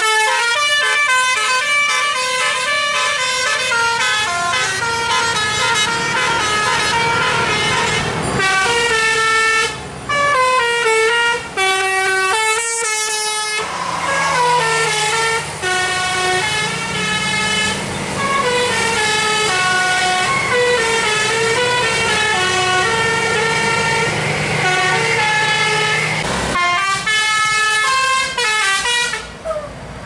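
Telolet-style musical bus air horn playing a running tune of quick stepped notes, several tones sounding together. It pauses briefly about ten and thirteen seconds in and again near the end.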